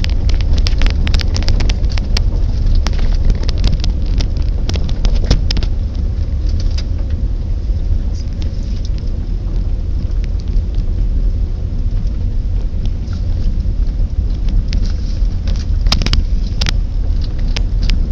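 A car is driving slowly over a rough dirt road, heard from inside the cabin. There is a steady low rumble of tyres and engine. Many sharp clicks and knocks come over the first several seconds and again near the end, as the car meets bumps in the road.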